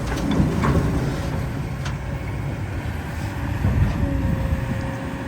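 Heavy diesel machinery running with a steady low rumble. A few sharp knocks come in the first two seconds, and a steady whine joins about four seconds in.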